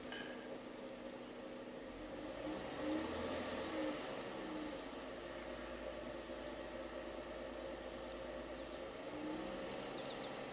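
Crickets chirping in an even rhythm, about three short high chirps a second, over the low steady hum of the Dodge Durango's 3.6-litre V6 idling.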